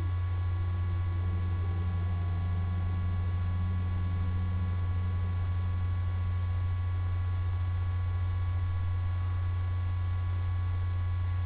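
Steady low electrical hum with faint steady high-pitched tones above it.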